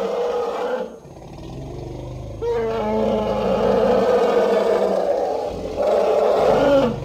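Elephant roaring: a loud call breaks off about a second in, a low rumble follows, then two long roars, the second dropping in pitch as it ends.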